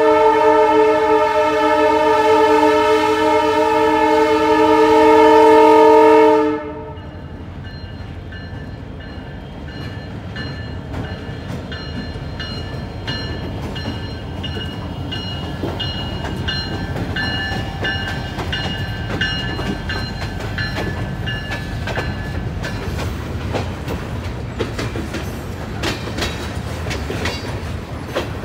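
Diesel freight locomotive's air horn blowing one long chord-like blast of about six seconds, cutting off sharply; then the locomotive running past and the freight cars rolling by, wheels clicking over rail joints, the clicks coming thicker near the end.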